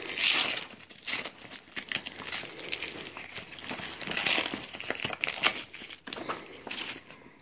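Rustling and crinkling from handling the padded fabric of a UTG Alpha Battle Carrier rifle bag: a run of irregular scraping strokes that stops just before the end.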